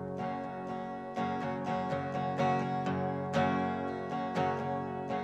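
Two acoustic guitars strummed together in a steady rhythm, about two strums a second, with no singing.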